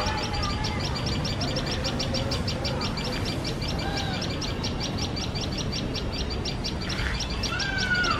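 Common tailorbirds giving a fast, even run of sharp alarm notes, about nine a second, set off by a cat close to their nest, with a few lower gliding whistles mixed in.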